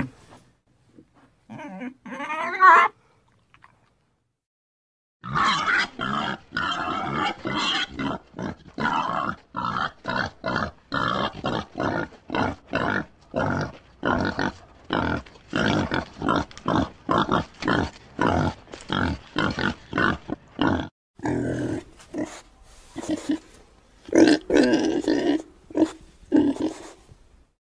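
Pig grunting in a long, rapid series of short grunts, about three a second, after a brief call and a short pause; the grunts grow more irregular near the end.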